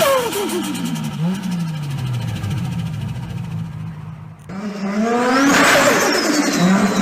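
Turbocharged car engines revving and lifting off, with turbo flutter as the throttle snaps shut. The revs fall away after a blip; then a second engine revs up sharply and drops back with a high falling turbo whistle.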